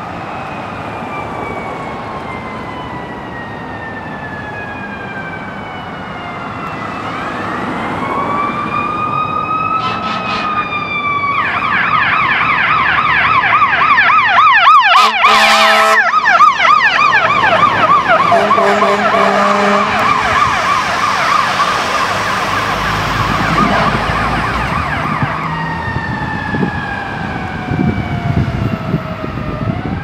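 Fire rescue truck's siren in a slow wail, switching about a third of the way in to a fast yelp that it holds until near the end, then falling back to a wail. Air horn blasts come about halfway through, at the loudest point as the truck goes by.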